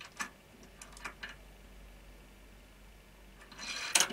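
A few light clicks and taps of a wooden toy car on a wooden ramp tower in the first second and a half, then a short, louder rush of noise near the end.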